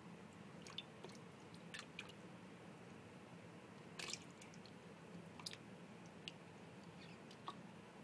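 Faint, sparse drips and small splashes of shallow bath water as baby Burmese pythons move about in it: a handful of soft ticks, the largest splash about four seconds in, over a low steady hum.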